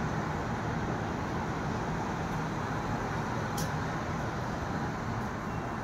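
Steady low rumble of road traffic, with a brief faint click about three and a half seconds in.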